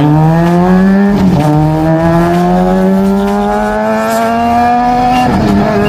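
Sport motorcycle with an aftermarket exhaust pulling hard through the gears: the engine note climbs, drops sharply at a gear change about a second in, then climbs steadily for about four seconds before dropping again at another shift near the end.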